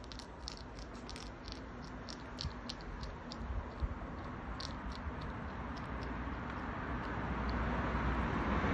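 Hedgehog crunching dry cat kibble: a run of sharp, irregular crunches and clicks that thin out after about five seconds. A low rumble grows louder toward the end.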